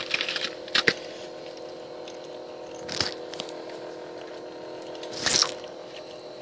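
Handling noise from a hand-held phone: scattered rustles and scrapes over a steady low hum, with a cluster in the first second, a short scrape about three seconds in and a louder one around five seconds in.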